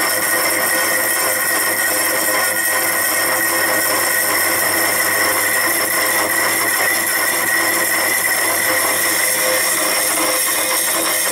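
Slitting saw cutting steel on a milling machine, a steady cutting sound with constant high tones from the spinning blade.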